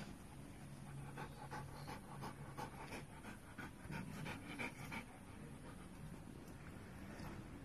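Rottweiler panting in quick, rhythmic breaths. The panting is strongest from about one to five seconds in, then eases off.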